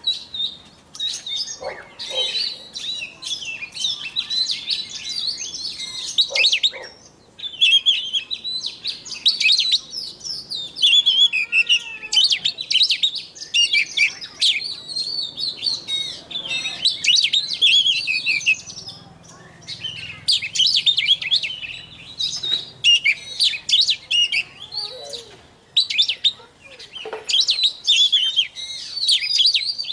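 White-rumped shama singing a long, rapid run of varied high-pitched phrases, broken by a few short pauses.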